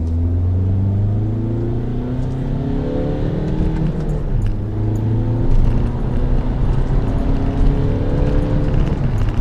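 2011 Volkswagen Jetta TDI's 2.0-litre four-cylinder diesel pulling under acceleration through its six-speed manual gearbox. The engine note climbs steadily, drops with a gear change about four seconds in, then climbs again and drops near the end.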